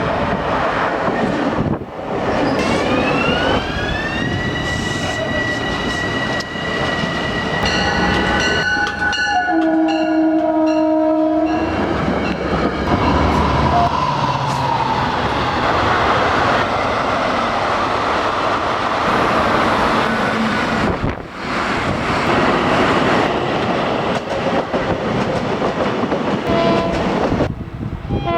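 Locomotive air horn sounding at a grade crossing in long blasts, one rising in pitch as it starts and then holding, followed by a lower chord. The train then passes close by with a loud steady rumble and wheel clatter.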